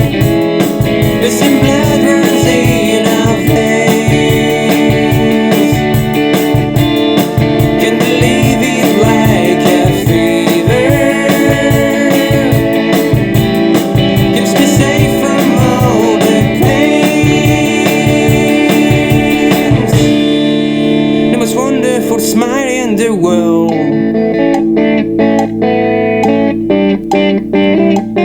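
A band playing guitar and organ over a steady drum beat. About twenty seconds in, the drums stop, leaving held guitar and organ chords with a few plucked notes.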